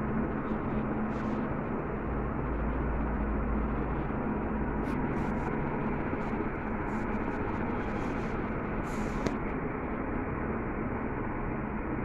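Crompton Greaves Three Star 48-inch three-blade ceiling fan running at speed: a steady rush of moving air over a low, even motor hum.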